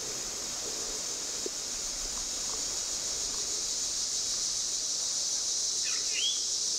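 Steady high-pitched drone of a late-summer insect chorus in the woods, with a few faint rustles and a bird's short rising chirp about six seconds in.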